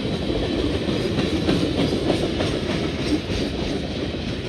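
Freight cars of a CSX mixed freight train rolling past, steel wheels clicking over the rail joints.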